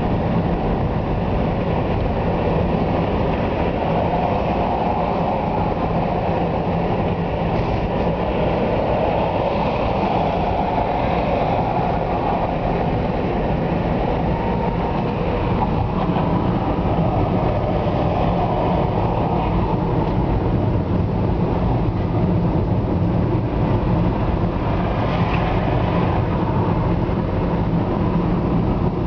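Steady road and engine noise of a car driving on a motorway, heard from inside the cabin: an even, continuous rumble of tyres and engine.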